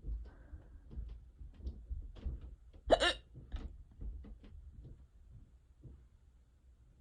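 A person hiccuping. One loud hiccup with a sharp vocal 'hic' comes about three seconds in, among fainter short clicks before and after it.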